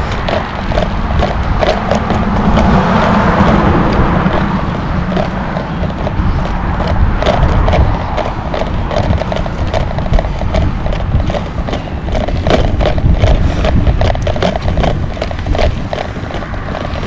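Wind rushing over the microphone of a camera on a moving bicycle, with a steady patter of clicks and rattles from the bike.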